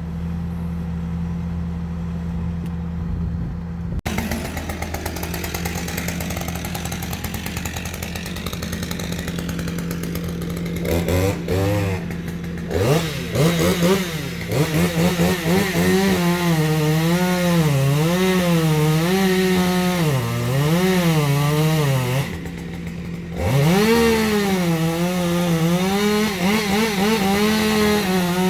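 Two-stroke chainsaw cutting wood. An engine idles steadily for the first few seconds. Then the saw's pitch climbs and wavers up and down over and over as it revs and bogs in the cut. It drops off briefly a little past two-thirds of the way through, then revs up again.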